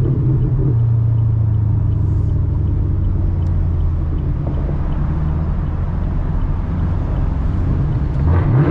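Chevrolet Camaro V8 exhaust running at a steady deep note that settles a little lower about a second in, then starts to rev up near the end.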